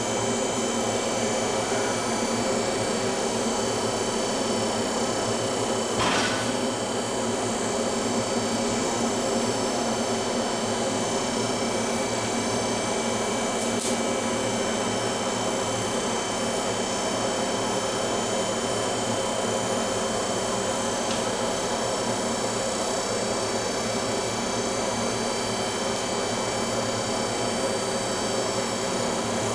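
A running forge, its burner or blower making a steady rushing hum with fixed whining tones, broken by two faint clicks.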